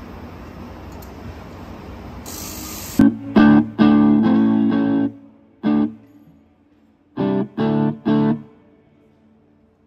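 A steady hiss, then about three seconds in an amplified electric guitar plays chords: two short stabs, a chord held for about a second, one more stab, and three quick stabs near the end.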